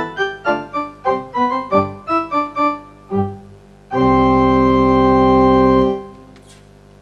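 Keyboard with an organ sound playing a quick run of notes, then a loud held chord for about two seconds that cuts off about six seconds in.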